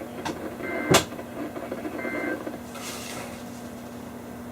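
Two short bursts of EAS digital data tones, a rapid two-pitch buzz, from a NOAA weather radio, about a second apart: the end-of-message code that closes the warning broadcast. A sharp, loud click comes between them, and a brief hiss about three seconds in, over light static and a steady low hum.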